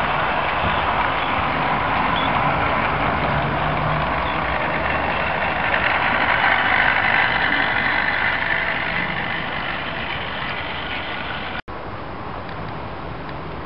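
00 gauge model train running past on its track, a steady whir and rattle of motors and wheels that swells as the coaches pass close and then eases off. The sound breaks off sharply near the end and carries on quieter.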